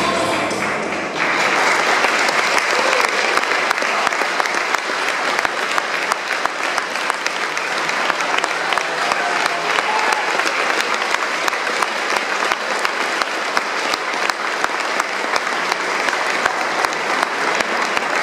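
Dance music cuts off about a second in and an audience breaks into sustained applause, many hands clapping at once.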